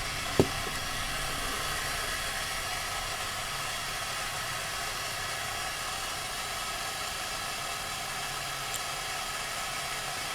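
Lit acetylene torch flame hissing steadily, with one short sharp tap about half a second in.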